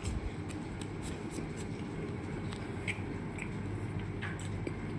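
Faint scattered clicks and mouth sounds of someone eating a slice of pizza, over a steady low hum.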